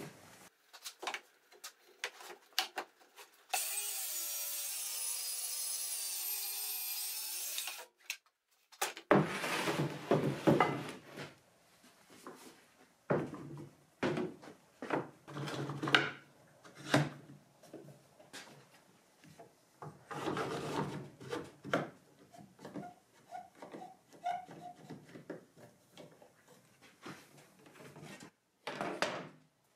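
Wood and an aluminium saw guide rail being slid, scraped and knocked about on a workbench as a straight cut is lined up, in irregular bursts of rubbing with a few light knocks. A few seconds in there is a steady, even noise lasting about four seconds.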